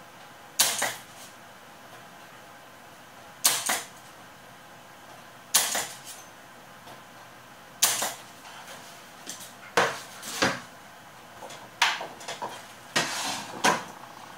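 Irregular sharp clicks and knocks, about nine, from hands and tools working on a circuit board, bunching closer together near the end.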